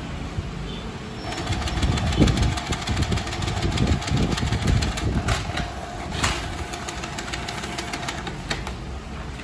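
Canon PIXMA iP2870S inkjet printer feeding a sheet and printing a colour test page: a steady motor whine with rapid clicking from the print carriage and paper feed. It starts about a second in and stops near the end.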